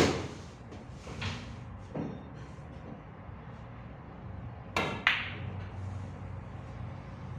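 Sharp clicks of a cue and pool balls striking. A loud crack comes right at the start, fainter knocks follow about a second and two seconds in, and two more clicks come close together about five seconds in.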